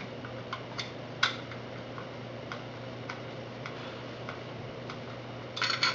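Small metal mounting bracket handled in the fingers, giving light, irregular clicks over a steady low hum; near the end a quick cluster of louder clicks and rattles as it is brought against the rack frame.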